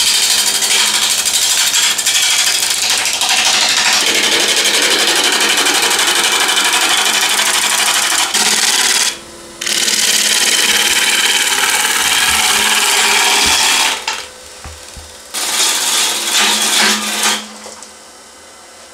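A turning tool cutting into a spinning birch blank on a wood lathe, roughing it down: a loud, rough scraping hiss over the steady hum of the lathe. The cut breaks off briefly about nine seconds in and again for about a second around fourteen seconds, leaving the hum, and it eases near the end.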